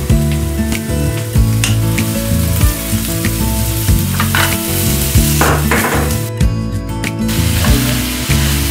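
Chopped onions sizzling in olive oil in a frying pan, stirred with a silicone spatula that scrapes across the pan. The sizzle drops out for under a second about six and a half seconds in, then comes back.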